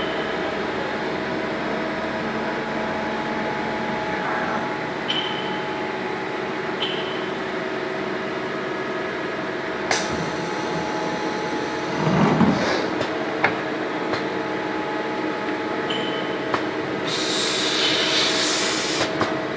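CNC lathe and its pneumatic rod-piece auto loader running, a steady hum of several constant tones. Scattered sharp clicks and brief high chirps, a short clattering about twelve seconds in, and a hiss lasting about two seconds near the end.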